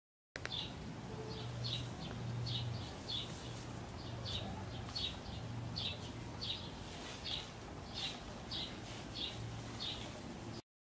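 A bird repeating a short, high chirp about twice a second, with a low hum that comes and goes underneath.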